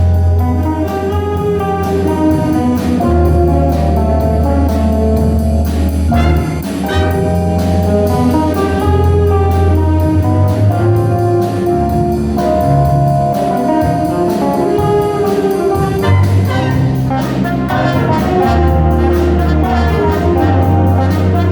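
A band playing a jazz tune with horns over a low bass line, drums keeping a steady beat.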